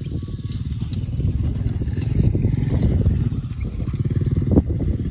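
A vehicle engine running steadily at a low, even throb, with a single knock about four and a half seconds in.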